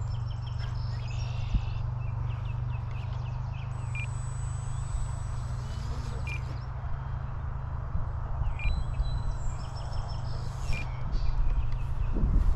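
Wind buffeting the microphone in a steady low rumble, with birds chirping in short, scattered calls over it.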